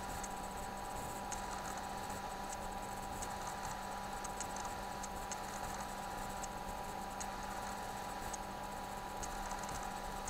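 Steady electrical hum and hiss from the recording setup, with faint, irregular high ticks scattered through it.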